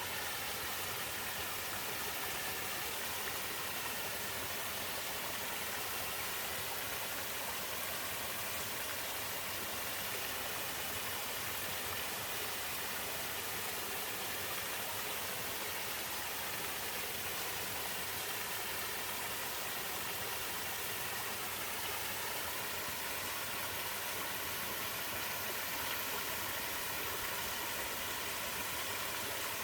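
Water pouring over a small twin waterfall in a mountain stream, a steady even rush with no change.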